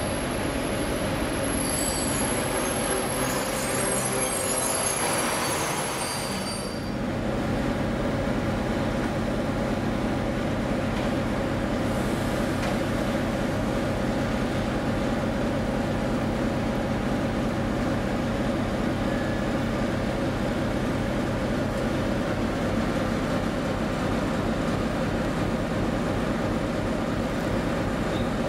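A passenger train's brakes and wheels squeal with high thin tones as it comes to a stop. After about seven seconds the TEP70 diesel locomotive's engine idles with a steady low hum.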